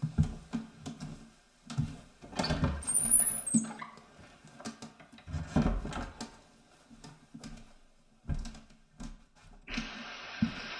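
Animation sound effects of something straining to push out from behind an eye: irregular muffled thumps and rustling, a short high squeak about three seconds in, then a steady hiss that starts near the end.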